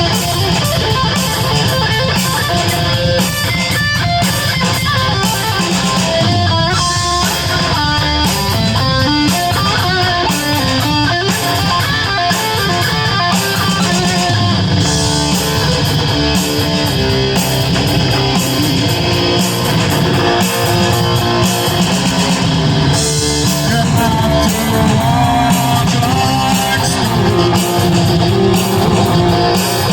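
Electric guitar played through a distortion effect in a heavy rock style, continuous and loud, with runs of single notes standing out at times.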